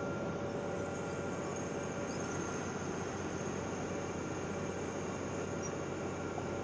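Wirtgen W 210Fi cold milling machine running steadily while cutting asphalt, an even mechanical noise with a thin steady high tone through it.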